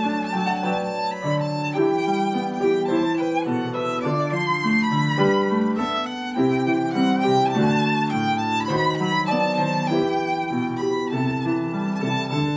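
Violin playing a bowed song melody over piano accompaniment, with lower held chords under the line.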